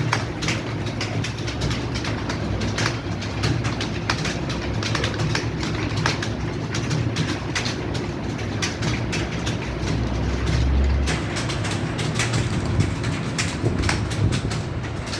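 Several people typing at once on computer keyboards: a continuous, irregular clatter of key clicks over a steady low hum.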